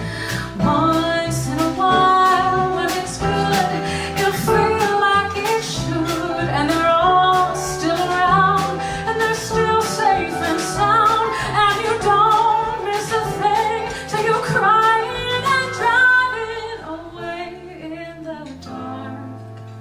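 A woman singing a pop ballad live with instrumental accompaniment. About three-quarters of the way through, the singing and accompaniment drop back to a quieter held low note.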